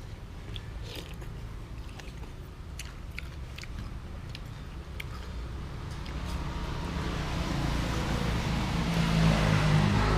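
A road vehicle passes close by: engine and tyre noise swell over the second half to a peak near the end, over a steady low rumble of traffic. Scattered light clicks in the first half, as of eating at the table.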